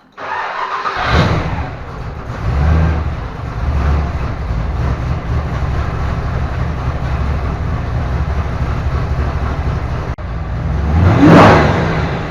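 Ford 302 small-block V8 in a Mazda Miata, breathing through an AirAid intake, starting from cold: it catches with a flare about a second in, then idles with a low, uneven pulse. Near the end it is revved once and drops back to idle, echoing in a tin building.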